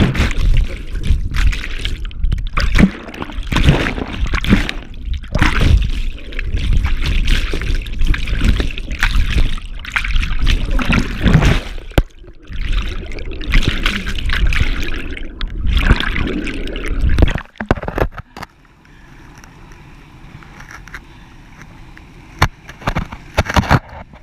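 Turbulent river water churning and splashing around a GoPro in fast white water below a waterfall, dipping under and breaking the surface in loud, choppy surges with a deep rumble. About 17 seconds in, this drops suddenly to a quieter, steady rush of the river, with a few sharp splashes or knocks near the end.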